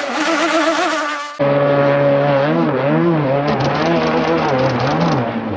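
Engine of a radio-controlled racing hydroplane running at speed: a high buzzing note whose pitch wavers up and down. About a second and a half in, it cuts to another pass with a lower engine note that keeps rising and falling.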